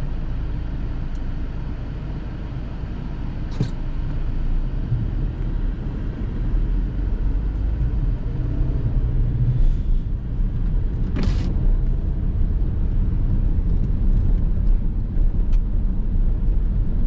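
Car driving slowly on a snow-covered road: a steady low rumble of engine and tyres, growing a little louder after a few seconds, with a couple of brief sharp clicks.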